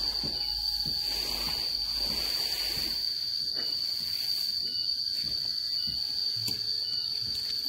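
A steady, high-pitched insect drone, likely crickets, holds the same pitch throughout. Under it a wooden rake scrapes and rustles through drying paddy rice grain, loudest about one to three seconds in.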